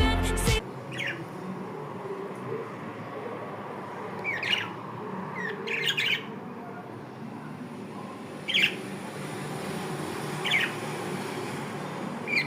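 Pet budgerigars giving about six short, scattered chirps and squawks. Music stops in the first second.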